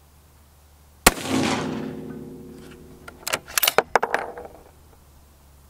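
A single shot from a bolt-action .308 rifle fitted with an AAC muzzle brake about a second in, loud and sharp, its echo rolling off over the next two seconds. A few seconds later come several quick metallic clicks, the bolt being worked to chamber the next round.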